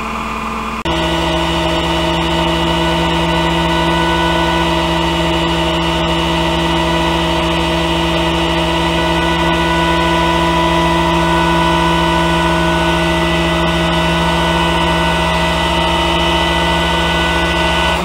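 Flatbed tow truck's engine and hydraulics running steadily while the bed is tilted and slid back. The engine note steps up to a higher, louder speed about a second in, as the hydraulics are engaged, and then holds.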